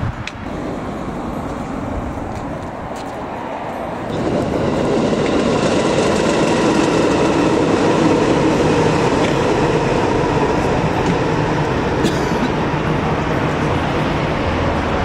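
Electric commuter train running along the line: a steady rumble of wheels on rails with a faint motor whine. It comes in about four seconds in and stays loud.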